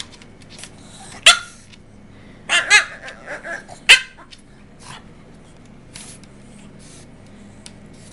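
Boston terrier begging for food with short yips and a longer wavering 'talking' vocalization. There is a sharp yip about a second in, a drawn-out two-part call just under three seconds in, a few small sounds after it, and another sharp yip at about four seconds.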